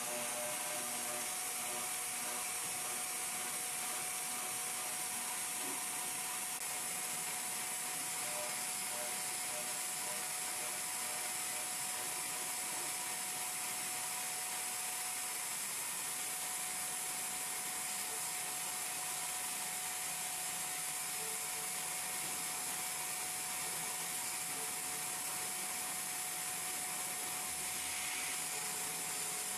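CNC milling machine cutting a metal workpiece with a high-speed end mill: a steady hiss of the cut with a steady tone running through it.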